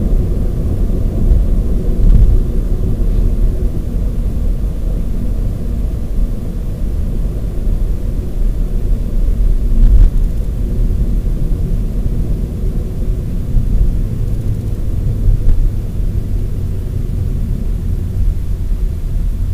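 Car driving at road speed, heard from inside the cabin: a steady low rumble of tyres on asphalt and engine.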